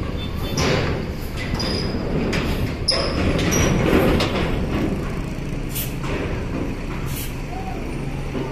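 Diesel engines of large intercity buses running, with several short hisses of air from their air brakes.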